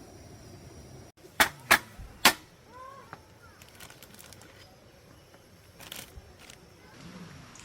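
Three sharp clicks or knocks in quick succession, the last the loudest, followed by a few faint ticks and short chirps over quiet outdoor background.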